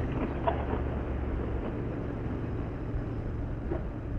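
Royal Enfield Interceptor 650's parallel-twin engine running steadily at cruising speed, under a steady rush of wind and road noise.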